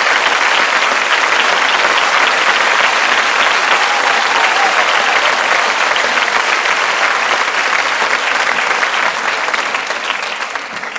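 Theatre audience applauding, a dense, steady clapping that fades away near the end.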